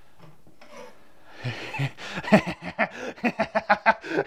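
A man laughing: a quick run of pitched 'ha-ha' pulses, about five or six a second, that starts about a second and a half in and grows louder.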